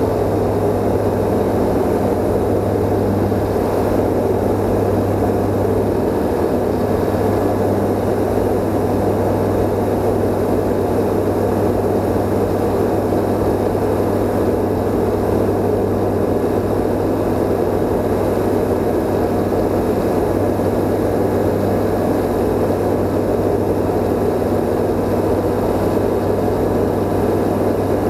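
Rotax 912 four-cylinder engine and propeller of a CSA PS28 Cruiser light aircraft droning steadily in flight, heard inside the cockpit with a low hum and an even rush of airflow.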